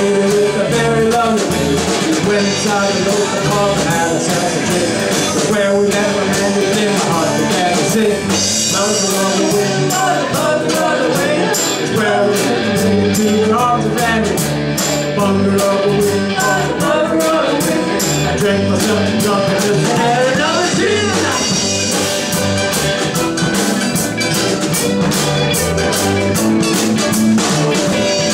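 Live rock band playing an Irish-style original song, with electric and acoustic guitars over a steady drum-kit beat.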